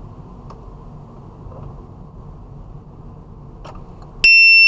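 Steady, muffled road and engine noise inside a car's cabin at highway speed. About four seconds in, a loud, high electronic beep cuts in for about half a second.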